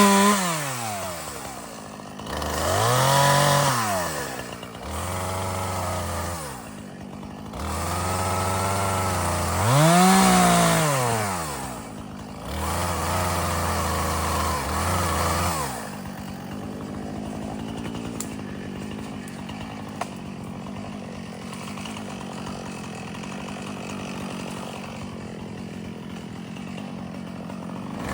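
Chainsaw bucking branches: the engine revs up and down several times, with stretches of steady running under load as it cuts through wood. From about halfway it settles into a quieter steady idle, then revs again at the very end.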